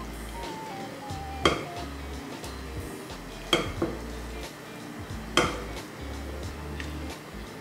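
Frying pan and wooden spatula clinking against a bowl as food is scraped out of the pan: four sharp knocks, roughly every two seconds, with background music.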